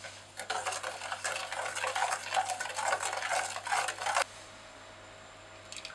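Black plastic spoon stirring a milk-and-egg-yolk custard in a stainless steel saucepan, scraping against the pan's bottom and sides in quick strokes for about four seconds, then stopping suddenly. A light tap follows near the end.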